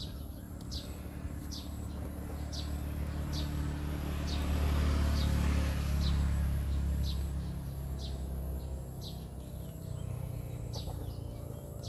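Low engine rumble of a vehicle passing, building to its loudest midway and fading away by about nine seconds in. Short high chirps repeat about once a second throughout.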